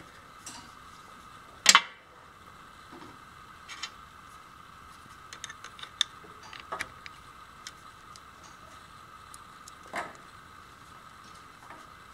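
Metal clicks and clinks of needle-nose pliers working the master link clip of a steel roller chain on its sprocket. There is a sharp clink near the start, another about ten seconds in, and lighter ticks between, over a faint steady hum.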